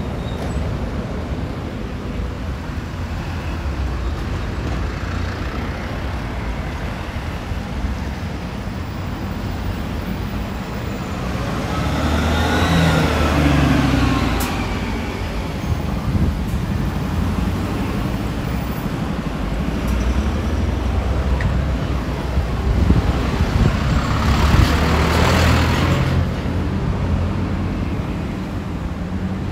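Road traffic: a steady low rumble, with two vehicles passing close, swelling and fading about twelve seconds in and again about twenty-four seconds in.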